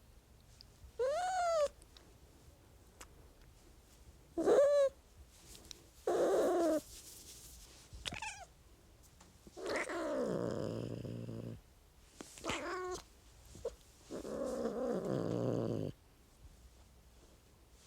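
A domestic cat meowing and growling: about five short meows that rise and fall in pitch, broken by two longer, low growls of about two seconds each.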